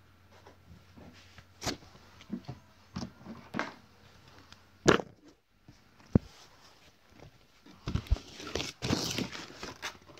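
Handling noises: scattered taps and knocks, the loudest about five seconds in, then rustling for about a second and a half near the end.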